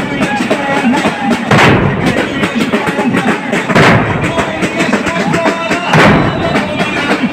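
A crowd of mourners striking their chests in unison (latm), a heavy combined thud about every two seconds, with chanting voices between the strikes.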